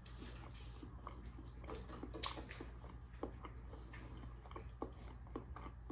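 A person chewing hard-boiled egg with the mouth closed: faint, irregular wet mouth clicks and smacks, one a little louder about two seconds in, over a steady low hum.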